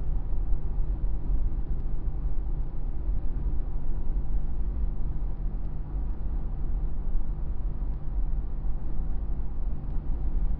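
Steady engine drone and tyre and road noise heard from inside a truck cruising at freeway speed.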